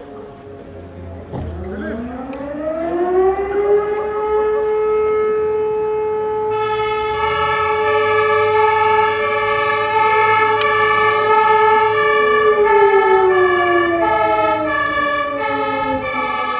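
A motor-driven civil-defence warning siren winds up slowly, holds one steady howl, and winds down near the end: a fire brigade alarm. About halfway through, a fire engine's two-tone horn joins, alternating between two pitches.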